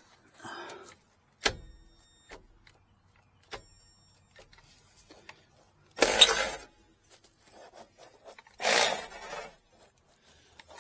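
Hand tools working on a standby generator's spark plug: a sharp metal clank about a second and a half in that rings for about two seconds, a few light ticks, then two short, loud noisy bursts about six and nine seconds in.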